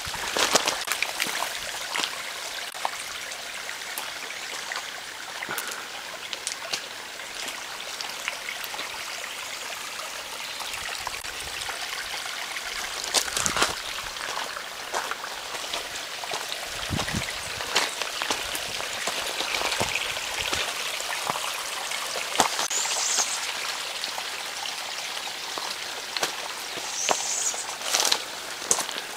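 Trickle of a small stream running under footsteps crunching on a dirt and leaf-litter trail, with scattered clicks from the steps. A few short high chirps near the end.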